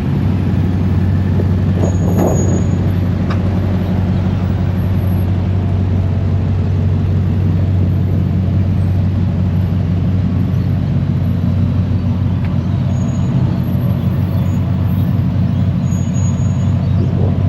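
Steady low drone of a car engine with road noise, holding even throughout.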